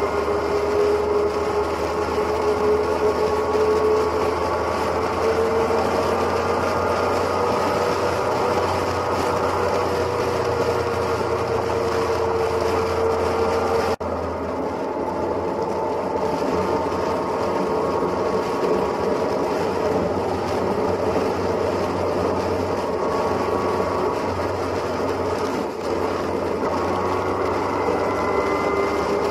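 Motorcycle cruising at highway speed: a steady engine drone and wind rush, its pitch drifting slowly up and down, with a sudden change about halfway through.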